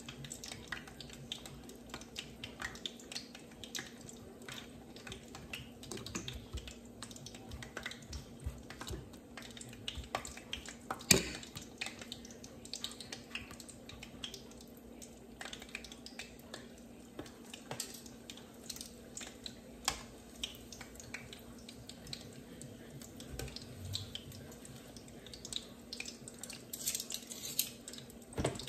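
Scattered light taps and clicks of hands and a plastic spoon working at a ceramic bowl of lumpia filling and a cutting board, with one sharper knock about eleven seconds in. A steady low hum sits underneath, and a brief hiss comes near the end.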